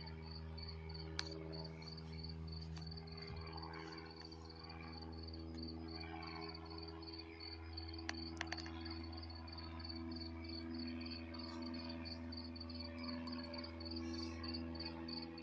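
Crickets chirping in a steady, regular high-pitched rhythm, over a steady low hum, with a few faint clicks.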